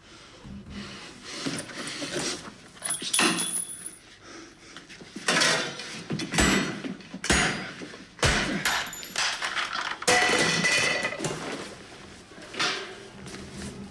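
A run of irregular metallic clatters and knocks, some leaving a brief high ring, like metal objects being struck and knocked about.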